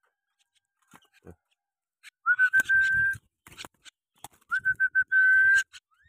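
Whistling at a steady high pitch: one held whistle about two seconds in, then a few short toots running into a second held whistle near the end, with light clicks in between.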